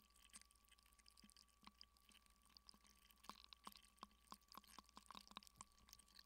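Faint, sparse clicks and pops of a block of ice melting in water, picked up by contact microphones frozen inside the ice. The clicks come more quickly in a cluster from about three and a half to five and a half seconds in.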